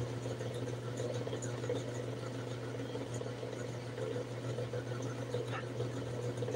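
Steady low hum of a small electric motor or appliance running, with a faint click about five and a half seconds in.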